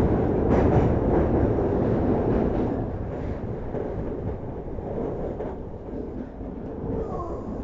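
Train running, a steady rumble and hiss that eases off over the first few seconds and picks up again near the end.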